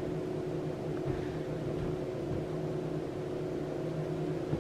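Steady low machine hum with a few constant tones, holding an even level throughout.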